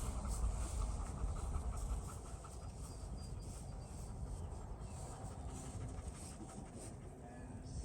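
Dog panting rapidly, a quick even rhythm for the first couple of seconds, then fading into faint outdoor background.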